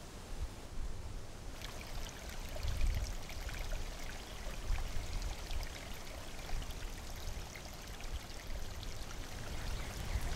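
Rain falling: an even hiss with a low rumble underneath. About a second and a half in it grows brighter, with many small ticks of drops.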